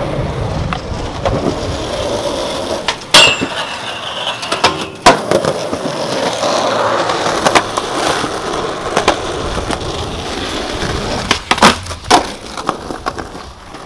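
Skateboard wheels rolling over rough concrete, broken by sharp clacks of the board on the ground. The loudest clacks come about three and five seconds in, with several more later and a cluster near the end.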